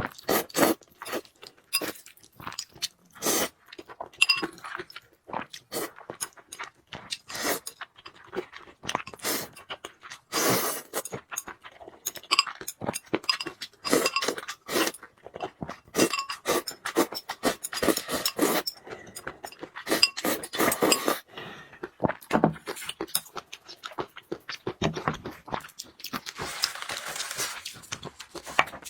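Close-miked eating of noodles: chewing, with many short sharp clicks and crunches, the odd clink of a utensil, and a few longer noisy stretches.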